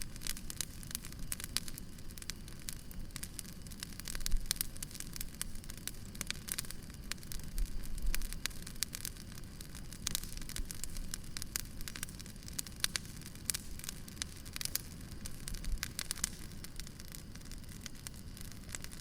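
Firewood burning with irregular sharp crackles and pops, several a second, over a steady low rustle of the fire. A couple of louder pops come about 4 and 8 seconds in.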